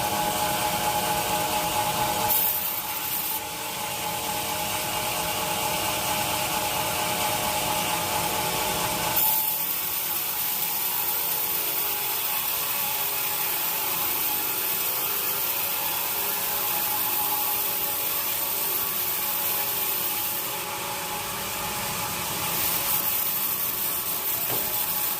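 A sawmill saw cutting through teak wood: a steady, continuous sawing noise over a machine hum. The sound shifts abruptly twice, about two and about nine seconds in, getting brighter after the second change.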